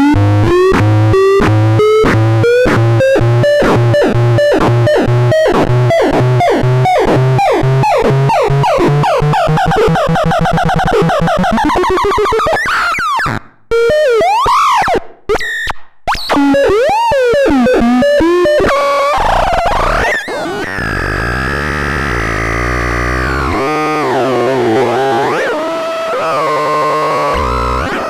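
Electronic noise synthesizer: a train of stepped, pitched pulses that speeds up over about twelve seconds into a buzz, cuts out briefly a few times, then turns into a wavering drone with pitch glides.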